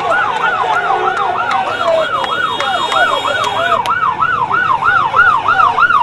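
Emergency vehicle siren in a fast yelp, its pitch sweeping up and down about three times a second. A second, fainter siren sweeps lower down during the first couple of seconds.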